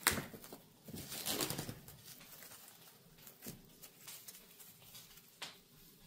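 Kitchen handling noises while food is packed: a sharp click, a rustling scrape about a second in, and a few light clicks after.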